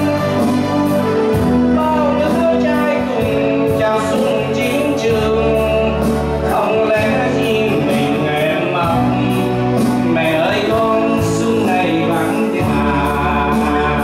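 Man singing into a handheld microphone, amplified over backing music with long held bass notes.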